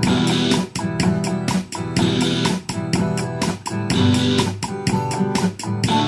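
Instrumental passage of a song demo: a drum-machine beat keeping a steady rhythm under sustained pitched instruments, with no singing.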